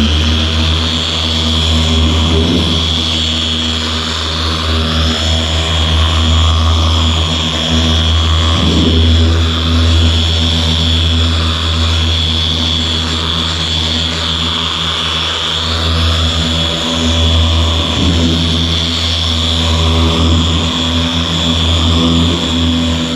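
Meguiar's MT300 dual-action polisher running steadily at speed, an even high motor whine over a low hum, as its pad works heavy-cut compound into old single-stage paint.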